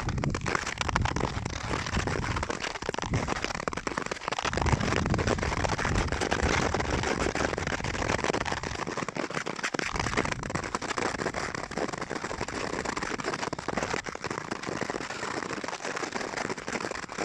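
Nordic skate blades scraping across snow-dusted natural lake ice: a continuous crackling scrape. Low gusty rumbles of wind on the microphone come and go in the first half.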